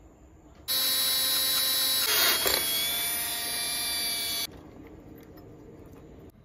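Cordless drill starting about a second in and running steadily, its bit cutting into a bronze part clamped in a bench vise, with a harsher grinding stretch midway; it stops nearly two seconds before the end.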